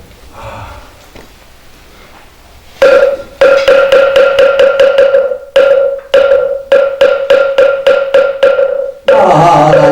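Moktak (Korean Buddhist wooden fish) struck in a fast run of hollow wooden knocks, starting about three seconds in and broken by a few brief pauses. The strikes set the tempo for sutra chanting, which begins near the end with sustained voices.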